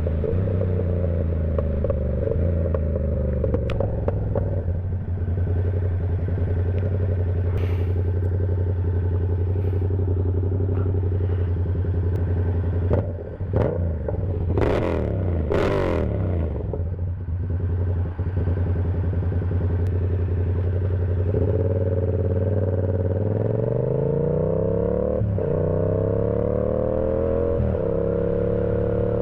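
Yamaha R7 motorcycle engine on the move, holding steady revs at first. Near the middle the revs drop and swing up and down quickly with a few clicks. In the last quarter it revs up steadily, with two short breaks as it shifts up through the gears.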